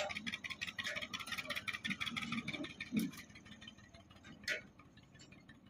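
An engine running with a fast, even clatter that fades after about three seconds, with two sharp knocks about three and four and a half seconds in.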